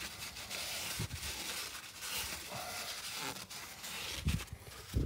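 A cloth rag rubbing and scrubbing inside the steel bush housing of a Range Rover L322's rear suspension, cleaning out the bore for a new bush: irregular scratchy wiping strokes with an occasional dull knock.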